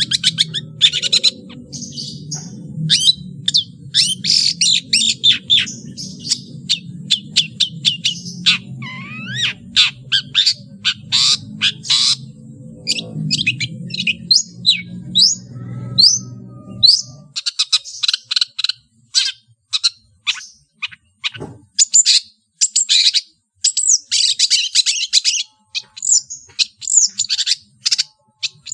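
Long-tailed shrike (cendet) singing a fast, varied song of sharp chirps, trills and mimicked calls of other birds. A low hum runs underneath and stops about two-thirds of the way through.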